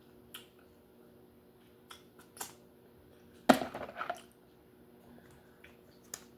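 Lobster shell cracking: one loud crack about halfway through, then a short crunching, with a few small clicks of shell before and after.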